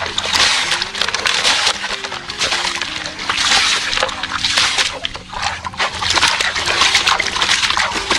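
Water splashing and sloshing in uneven surges as plastic toy trucks are washed.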